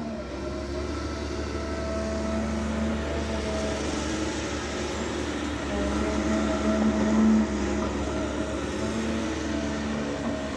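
Diesel engine of a Caterpillar 320 Next Gen excavator running steadily under work, swelling a little about six to seven seconds in.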